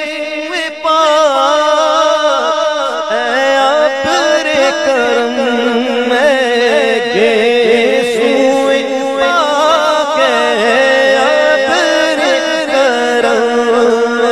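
A male naat reciter singing into a microphone: long held notes that waver and turn in ornamented runs, with no spoken words.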